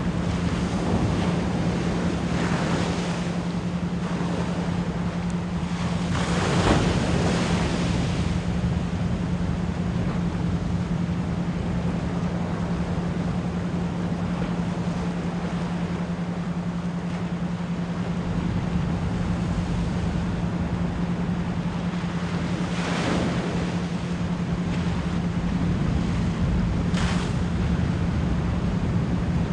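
Ocean waves washing in and breaking over a continuous hiss of surf, with the loudest swell about seven seconds in and smaller ones later. A steady low 174 Hz pure tone hums underneath.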